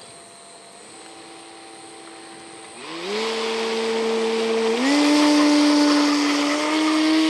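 Electric RC airplane's 600 kV brushless motor spinning a 12x12 propeller, throttled up in steps for takeoff. A faint steady tone at first; about three seconds in, the pitch jumps to a loud steady whine with propeller rush, and it steps higher again about two seconds later.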